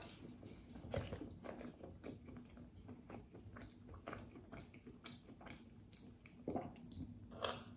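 A person chewing and biting a Korean cheese corndog close to the microphone, with many small irregular mouth clicks and smacks.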